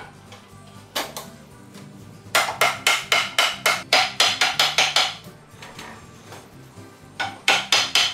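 Rapid hammer blows on a wooden wagon-wheel spoke, about four strikes a second: a run of about a dozen in the middle and a few more near the end, each ringing briefly.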